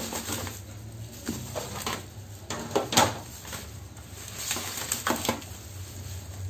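Metal baking trays knocking and scraping on a work table as a tray of sugar is shifted: a handful of clatters, the loudest about three seconds in, over a low steady hum.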